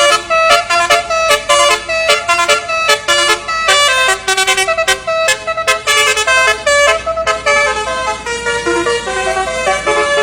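A bus's multi-trumpet telolet (basuri) horn playing a quick tune of short notes that change pitch several times a second.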